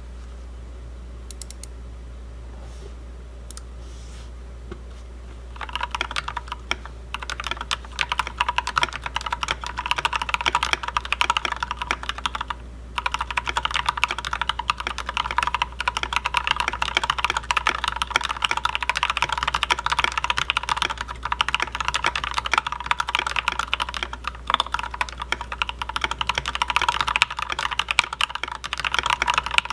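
Typing on a custom CFTKB Mysterium tenkeyless mechanical keyboard with lubed and filmed Gateron Black Ink V2 linear switches, a full brass plate, SA-profile keycaps and a stacked acrylic case. A few scattered keystrokes come first, then fast, continuous typing from about five seconds in, with a brief pause near the middle.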